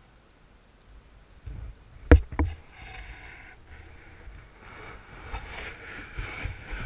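Wind buffeting the camera microphone over small waves lapping at a gravel lake shore, with two sharp knocks about two seconds in.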